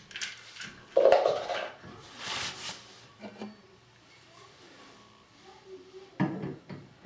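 Clinks, knocks and clatter of shower valve parts and tools being handled during reassembly: a loud clatter about a second in, a quieter stretch, then another burst of knocks near the end.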